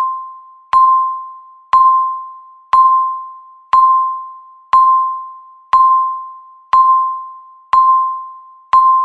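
Countdown timer beep: a single electronic chime-like tone struck once a second, nine times, each starting sharply and fading away before the next, ticking off the last seconds of the countdown.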